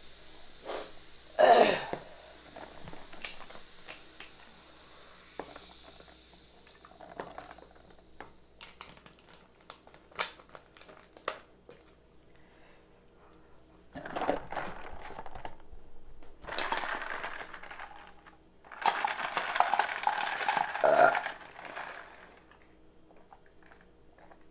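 Crab legs being eaten and handled: a loud clack of shell against a dish about a second and a half in, scattered small clicks of shell, then three longer noisy stretches of slurping in the second half.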